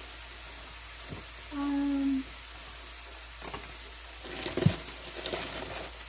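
Sliced mushrooms sautéing in a pan, a steady low sizzle. About a second and a half in there is a short hummed note, and a little after halfway a cluster of clicks and knocks of utensils against the pan.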